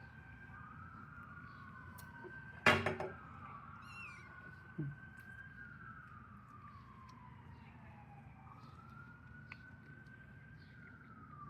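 Siren wailing, its pitch sweeping slowly up and down, with a sudden loud knock about three seconds in.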